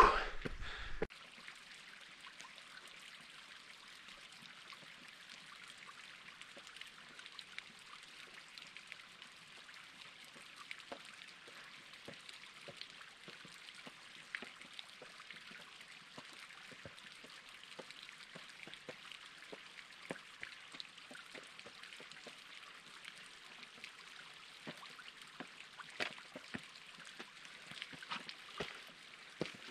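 Faint steady rush of distant running water, with scattered small taps throughout. Near the end come louder scrapes and taps of boots and hands on bare rock as a hiker scrambles up close.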